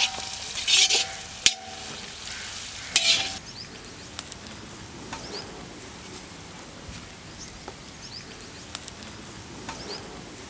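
Metal spatula scraping and clanking against a large black wok and a steel bowl as fried egg noodles are scooped out, with a hiss of sizzling and brief metallic ringing. The clatter and hiss stop about three and a half seconds in, leaving a few faint high chirps.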